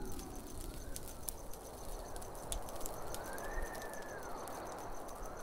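Crackling campfire, with a fast, even high-pitched chirping like insects and a few slow, rising-and-falling whistling tones over it.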